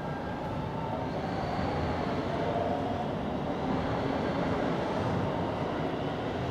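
Steady background rumble with faint, drawn-out whining tones over it.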